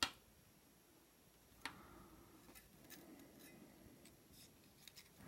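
Small metal clicks and taps from tools working a shim up inside an American 1100 padlock's core: a sharp click at the start, another just under two seconds in, then several light ticks.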